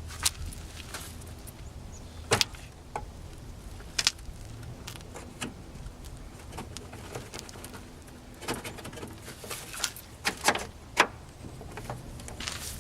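Irregular sharp plastic clicks and knocks as a headlight assembly and its slider clips are worked and fiddled into their mounting, a few strokes louder than the rest.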